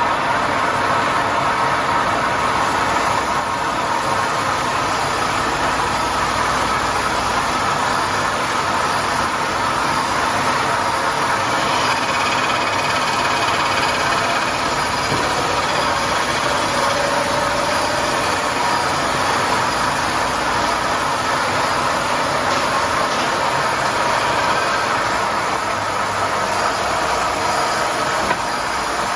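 Crankshaft grinding machine running steadily: an even machine hum with a high hiss that does not let up.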